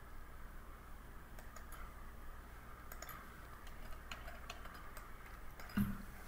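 Faint, scattered clicks of a computer mouse over a low steady hum, with one soft low thump near the end.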